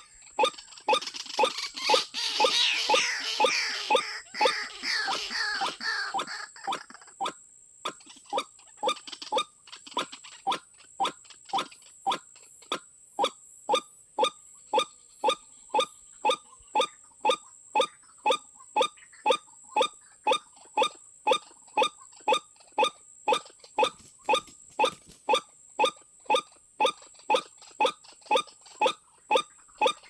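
White-breasted waterhen calling: a loud, jumbled chorus of falling croaking notes for the first six seconds or so, then a steady run of single harsh 'kwak' notes about twice a second.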